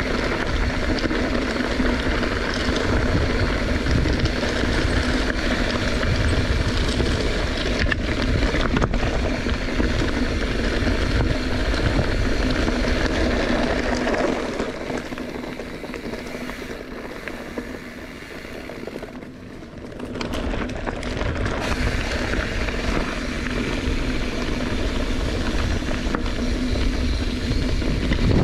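Wind rushing over the microphone, with tyre and frame noise, during a bicycle descent. It eases off for several seconds around the middle, then picks up again.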